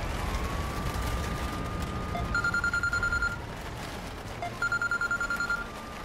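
Mobile phone ringtone: a rapid electronic trill about a second long, heard twice, each led in by a tone that rises and then holds. The car's low engine rumble runs beneath it.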